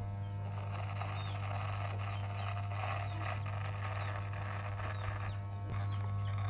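Wahl electric hair clipper buzzing steadily with a constant low hum as it shears through a full beard close to the skin, a rasp of cut hair over the motor's buzz.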